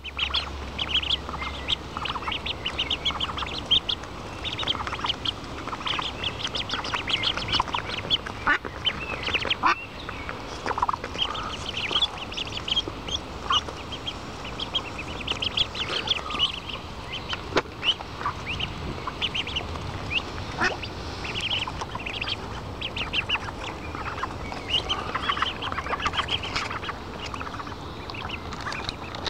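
A brood of hungry ducklings peeping continuously while feeding, many short high-pitched peeps overlapping in quick succession. A few sharp clicks stand out now and then.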